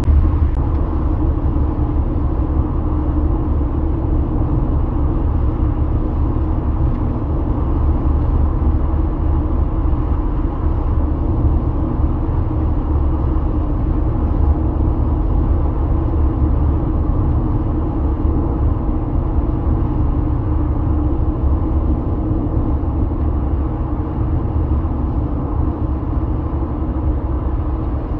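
Steady rumble of a car driving at highway speed, heard from inside the car, heaviest in the deep bass.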